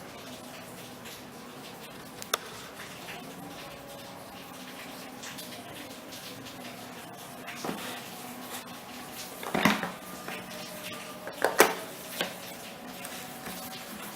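Handling noises from unboxing a Nokia 105 phone and its packaging: scattered clicks and knocks, a cluster of louder ones in the second half, over a faint steady hum.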